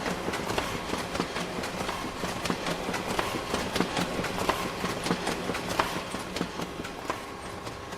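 Photocopier running: a steady mechanical hum with irregular clicking and clattering from its paper-handling mechanism. The clicking stops near the end, leaving a quieter hum.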